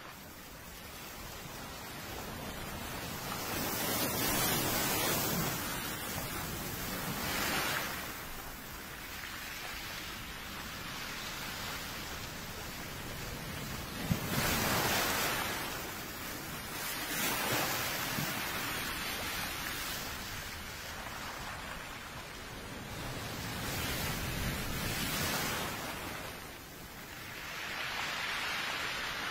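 Sea waves breaking and washing up a shore, swelling and fading every few seconds, with one sharp click about halfway through.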